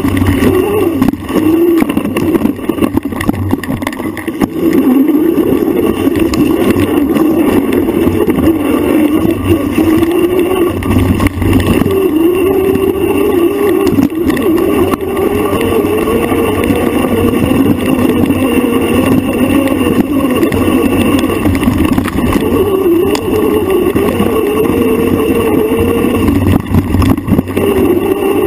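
Motor of an off-road bike being ridden hard along a forest single track, its pitch rising and falling with the throttle, with short knocks from bumps in the trail.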